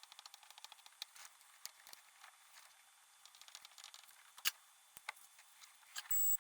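Faint scratching and light clicking of small hand tools working on an electronic circuit board, with one sharper click about four and a half seconds in and a short high steady tone near the end.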